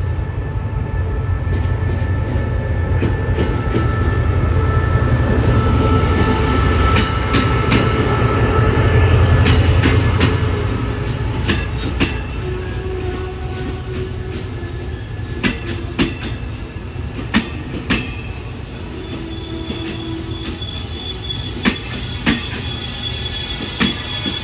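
Special express train hauled by a QSY-class diesel-electric locomotive rolling slowly into the station. The locomotive's engine rumbles loudly as it passes in the first ten seconds. The carriages follow with a steady brake squeal and wheels clacking over rail joints, the clacks spacing out as the train slows.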